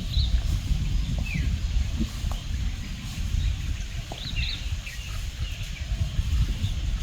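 Outdoor ambience: a steady low rumble under scattered short, high chirping animal calls, a few in quick succession about four seconds in.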